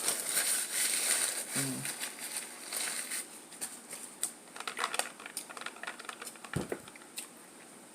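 Rustling for the first couple of seconds, then scattered small clicks and taps, with a brief hum about two seconds in.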